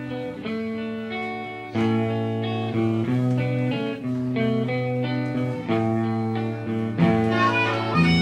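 Instrumental intro music: a guitar playing a melody of held notes that change about every half second.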